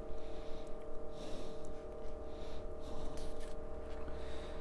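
A pause in speech: room tone with a steady faint hum and a few soft breaths.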